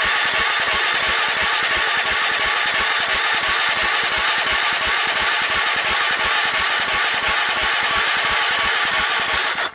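Electric starter cranking the 1998 Honda TRX300EX's single-cylinder four-stroke engine during a compression test: a steady loud whirring with a fast even pulse, cut off abruptly near the end. The gauge reads only about 35 psi, low compression that the owner calls a little thin.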